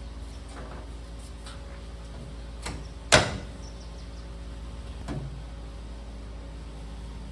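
A single sharp knock about three seconds in, with a couple of quieter taps around it, over a steady low hum.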